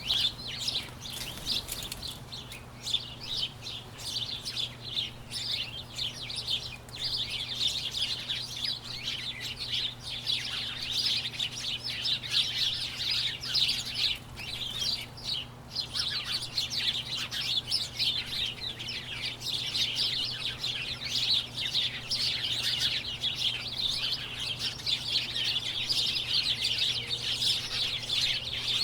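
Large flock of birds chirping together: a dense, continuous chatter of many short, overlapping chirps and tweets.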